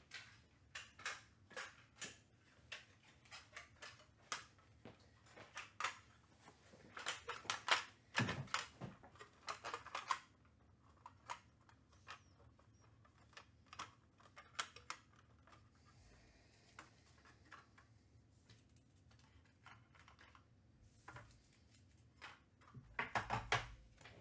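Trading cards and packs being handled: irregular light clicks and rustles of card stock and wrappers, busiest around seven to ten seconds in and again near the end.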